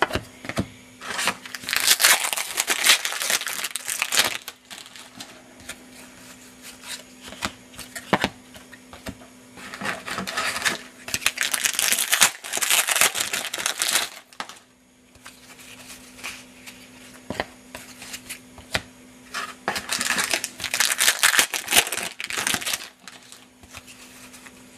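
Trading-card pack wrappers crinkling and tearing open, in three longer stretches of rustling. Between them, cards click and slide against each other as they are handled.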